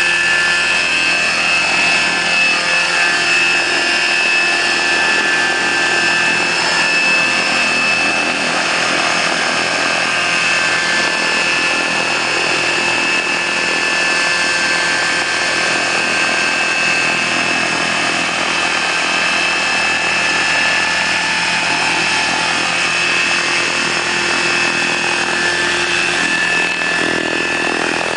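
Large electric radio-controlled model helicopter, a Bell 214 scale model with a 1.8 m rotor, hovering low: a steady high-pitched whine from its electric drive over the even rush of the rotor blades.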